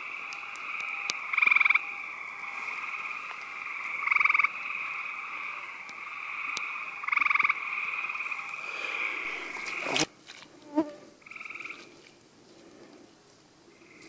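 Gray treefrogs calling: a steady chorus with a loud pulsed trill about every three seconds. A sharp click comes about ten seconds in, after which the calls are much fainter.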